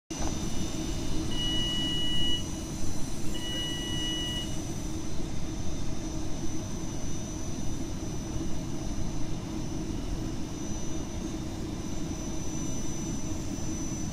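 A passenger train standing at a station platform, with a steady low rumble and hum. Two long electronic beeps of about a second each sound in the first few seconds.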